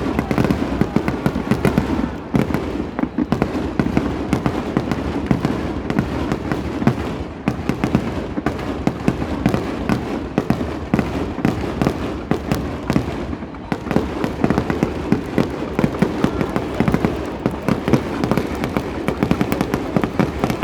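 Fireworks barrage: a dense, unbroken rattle of rapid bangs and crackles, many a second.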